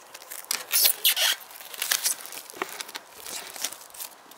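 Clear plastic shrink wrap being torn and pulled off a board game box, crinkling and crackling, with the loudest tearing about a second in.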